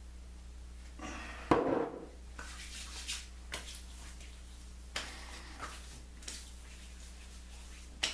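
Aftershave being put on and its bottle handled: a thump about one and a half seconds in, then scattered light clicks and taps, over a steady low electrical hum.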